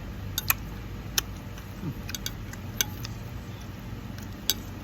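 Eating sounds: about six short, sharp clicks at irregular moments, the loudest about half a second and a second in and near the end, over a low steady background noise.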